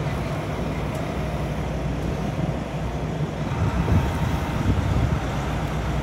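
Semi truck's diesel engine running as the tractor-trailer rolls slowly past, a steady low rumble that swells a little around the middle.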